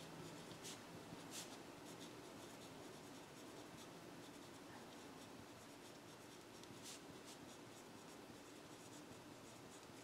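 Faint scratching of a pencil writing on paper, with a few sharper strokes, two near the start and one about seven seconds in.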